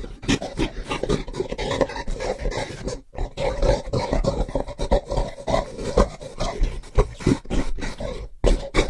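Gorilla belch vocalizations: short, rough, low grunting calls following one another quickly, with two brief breaks, about three seconds in and near the end.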